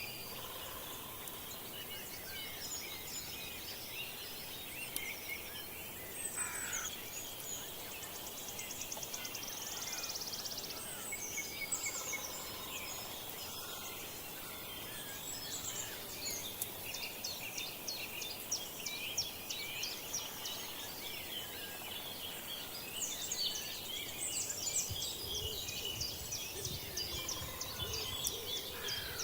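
Forest songbirds singing in a spring morning chorus, with many overlapping chirps and whistles. A fast, buzzy trill comes about ten seconds in, and the calls thicken near the end over a low rumble.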